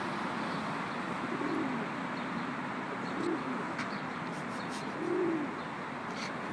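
Feral pigeon cooing: three low, rounded coos about two seconds apart, from a male puffed up in his bowing courtship display. A steady background hiss runs underneath.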